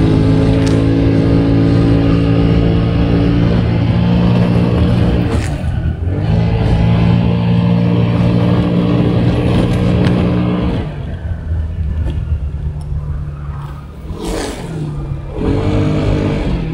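Vehicle engine running steadily while under way on a road, with a short break around six seconds in; it eases off and quietens about eleven seconds in, then picks up again near the end.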